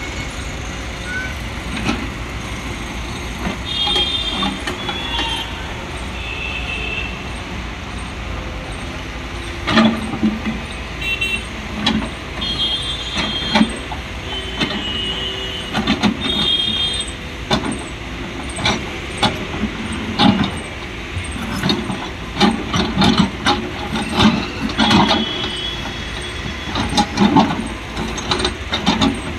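Tata Hitachi ZAXIS 140 hydraulic excavator's diesel engine running steadily under load while digging, with the bucket repeatedly knocking and scraping against rocks and soil, most densely in the second half. Several short high-pitched squeals come and go.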